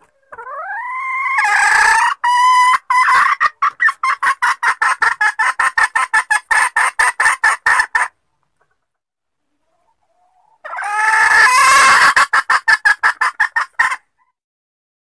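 Junglefowl hen calling: a drawn-out rising note that breaks into a fast run of short clucks, about five a second, then after a short pause a second, shorter bout. A hen's lure call that draws out the male.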